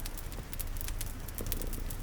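Mixed sleep ambience: a cat purring in a steady low rumble, a fire crackling with frequent small pops, and rain pattering underneath.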